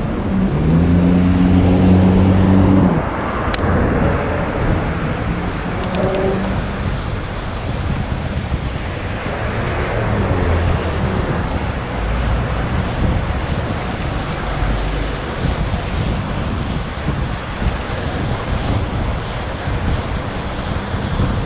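City road traffic: vehicles running and passing, with a steady engine hum from a nearby vehicle for about the first three seconds.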